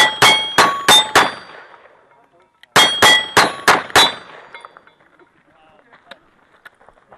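Revolver fired in two quick strings of five shots, each shot followed by the clang of a bullet striking a steel plate target, which rings on briefly. The strings are separated by a pause of about a second and a half.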